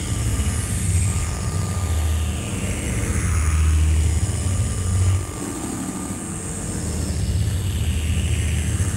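Electronic drone from a live noise performance: a loud, pulsing low rumble under a layer of high hiss, with faint sweeping tones. It dips briefly about halfway through, then builds again.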